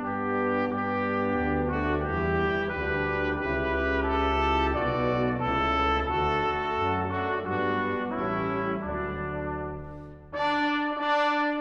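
Brass ensemble playing held chords that shift every second or so. Near the end the sound drops away briefly, then a louder, brighter chord comes in.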